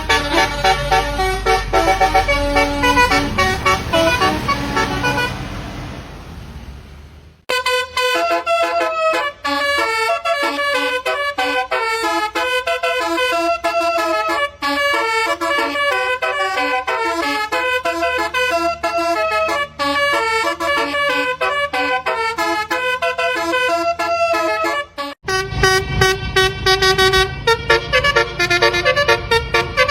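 Telolet bus horn playing quick multi-note melodic tunes. One tune fades out about seven seconds in, a new one starts right after, and near the end it switches to a third tune with a heavier low end.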